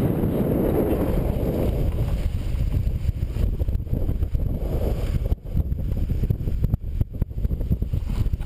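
Longboard wheels rumbling over asphalt while rolling, with wind buffeting the microphone. The rumble drops out briefly a few times in the second half.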